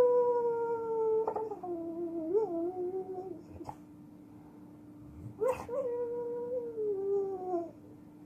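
Pit bull howling in his sleep while dreaming: two long, drawn-out howls that each slide down in pitch, the first already under way at the start and the second about five seconds in. A steady low hum runs underneath.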